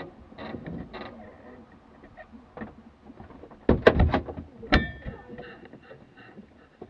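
Handling noise inside a parked light aircraft's cabin with the engine off: rustling, a quick cluster of sharp knocks a little over halfway in, then a single metallic clink that rings briefly.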